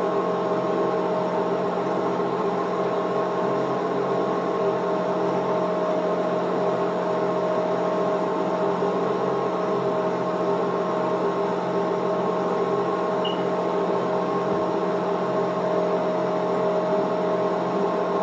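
A steady mechanical hum made of several constant tones, with no change in pitch or level.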